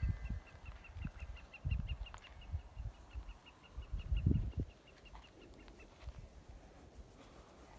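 Low thumps and rustling from the phone rubbing against a horse's mane, loudest about four seconds in. Behind them a bird repeats a quick high chirp at one pitch, about five a second, stopping about six seconds in.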